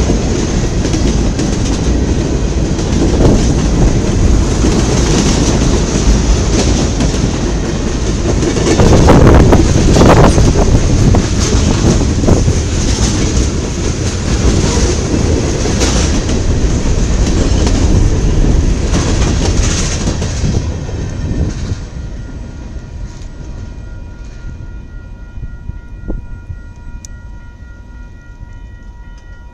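Freight train rolling past close by, its wheels clicking and rumbling on the rails as flatcars and tank cars go by, loudest about nine seconds in. The noise fades away from about twenty seconds in as the last cars pass, and a faint steady pitched tone comes up near the end.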